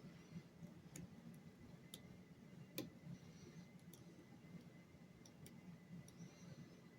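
Faint, irregular metallic clicks of lock picks working inside a lock, roughly one a second, one slightly louder about three seconds in.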